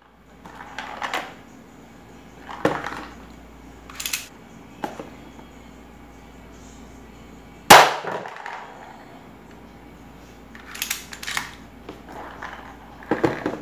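Spring-powered C.1911A+ airsoft pistol firing one shot point-blank into a cardboard box, a single sharp crack nearly eight seconds in. Quieter clicks and knocks come before and after it as the pistol is handled and cocked.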